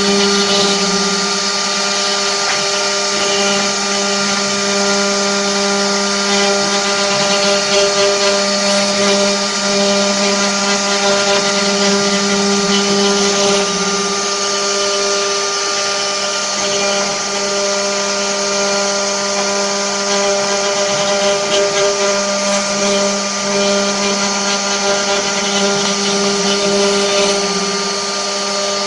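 Multi-spindle CNC wood router running, its spindles giving a steady whine of several pitches over a constant hiss of cutting noise. The lowest tone drops out for a few seconds about midway and again a little later.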